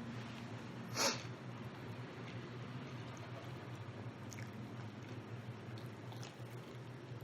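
Close-up chewing and mouth sounds of a person eating rotisserie chicken, with faint small clicks and one sharper, louder noise about a second in, over a steady low hum.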